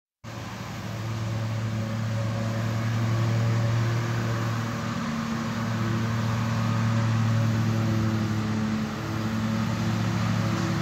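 A machine running with a steady low hum, holding its pitch throughout with a brief dip in level about nine seconds in.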